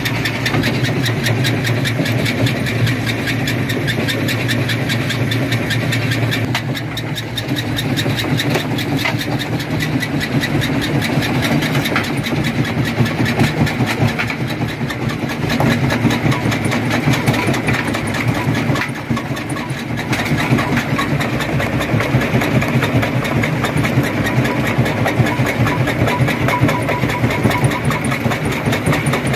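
Stone crusher running steadily under its motor: a constant low engine hum under a fast, continuous rattle and clatter of stone being broken.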